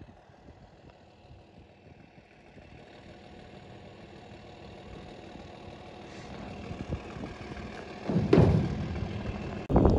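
A vehicle engine that grows slowly louder, with a sudden loud surge about eight seconds in and an abrupt cut just before the end.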